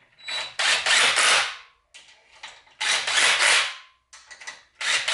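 Cordless impact driver run in several bursts of about a second each, hammering screws home as it tightens the clutch mounting plate onto a Predator 212cc engine.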